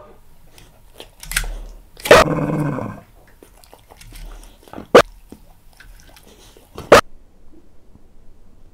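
Senior staffy mix dog giving a few short barks that cut off abruptly, with a longer drawn-out bark about two seconds in and two clipped single barks later on.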